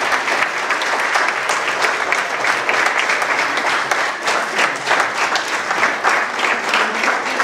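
Audience applauding: a room full of people clapping steadily.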